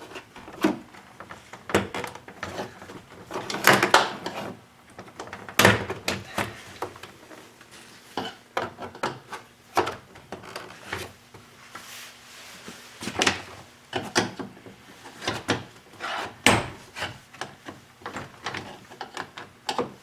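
A GMC Sonoma's plastic interior door trim panel being pried and tugged at its retaining clips with a trim removal tool: irregular clicks, knocks and rattles, with a few sharper snaps, as the clips give and the panel flexes.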